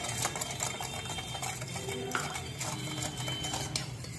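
Steel ladle stirring a thin sauce in a steel bowl, with a quick run of light clinks and scrapes of metal on metal.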